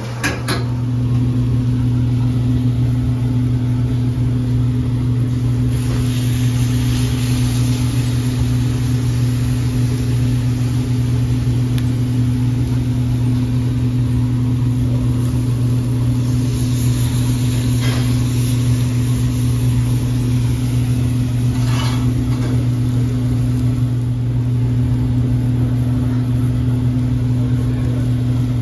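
Steady, loud machine hum: one low drone with a weaker tone above it, coming up about half a second in and holding unchanged, with a few faint clicks.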